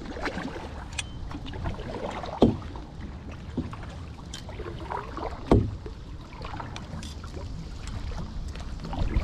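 Canoe paddle strokes: water splashing and swirling around the paddle blade, with a few sharp knocks of the paddle against the canoe, the loudest about two and a half and five and a half seconds in. A low wind rumble runs underneath.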